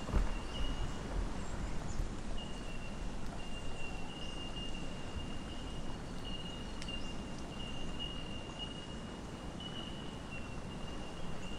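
Bush ambience: a continuous high-pitched insect tone with short breaks, over a low steady rumble.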